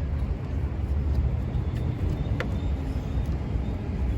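A steady low rumble, with one short sharp click a little past halfway.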